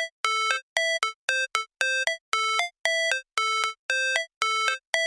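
Electronic intro music: a tune of short, clipped, bright notes, about three a second, with brief gaps between them.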